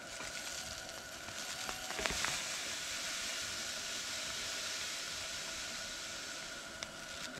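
Ground coffee pouring out of a zip-top plastic bag into a stainless steel pot: a steady hissing rustle, with a few crinkles and taps of the bag about two seconds in.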